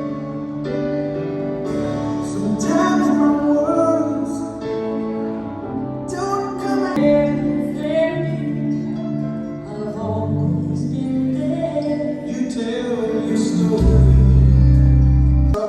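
Recorded song with a singing voice, played for dancing, with sustained melody notes. A loud deep bass note comes in near the end and stops suddenly.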